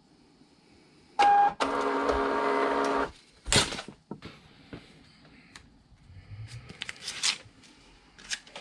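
Thermal label printer printing a shipping label: a brief start sound with a short tone, then its feed motor whirs steadily for about a second and a half. The label is then torn off with a quick ripping sound, followed by light paper handling.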